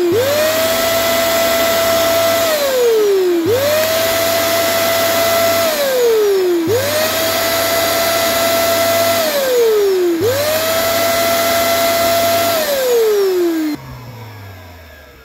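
Vacuum cleaner motor spinning up quickly, running at a steady whine for about two seconds, then winding down in pitch, four times over in a regular cycle. Near the end it cuts off suddenly, leaving a faint hum that fades away.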